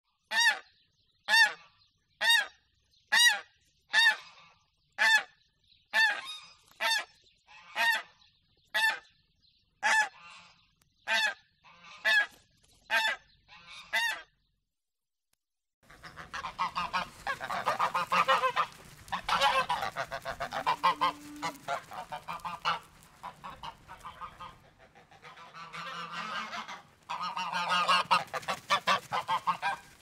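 A single goose honking about once a second, some fifteen calls in a row. After a short break, several geese honk and cackle together in a dense, overlapping chorus.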